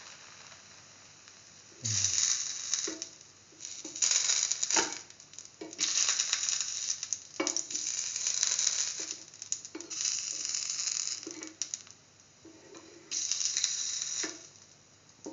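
Oil sizzling under a lentil-filled bread sandwich frying in a pan. The sizzle comes in about six hissing bursts, each up to a second and a half long, with quieter gaps between.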